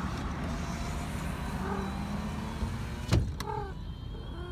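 Car idling with a steady low hum, a sharp knock a little after three seconds in, and a cat giving a couple of short, faint mews.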